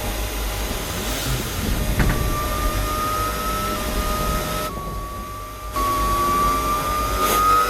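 Sound-designed sci-fi vehicle engine: a high whine that slowly rises in pitch, drops back a little about five seconds in and climbs again, over a low rumble and hiss, with a brief sharp hit about two seconds in.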